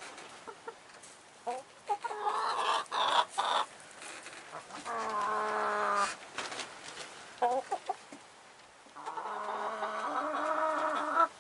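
Chickens calling: three long drawn-out calls, about two seconds each, with short clucks between them.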